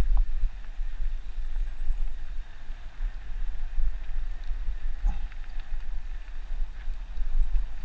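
Wind buffeting a mountain bike camera's microphone at riding speed, with bicycle tyres rolling over a dirt trail and a few small clicks and rattles from the bike.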